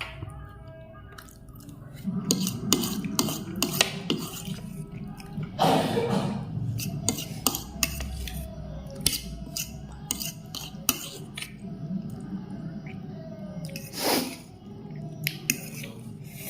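Eating sounds from soupy instant noodles: chewing and clicks of cutlery against a dish. A louder slurp comes about six seconds in and again near the end.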